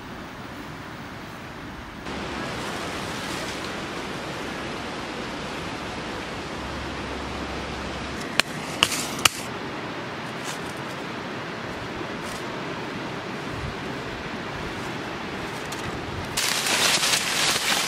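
Steady rush of a river running over rocks. Three sharp clicks a little past halfway, and a louder crackling rustle near the end.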